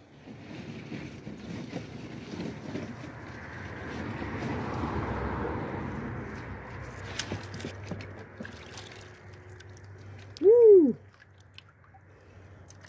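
Water sloshing and gurgling as amethyst plates are handled in a tub of water, swelling and fading over the first several seconds, followed by a few sharp clicks. About ten and a half seconds in comes a short rising-and-falling vocal exclamation, the loudest sound.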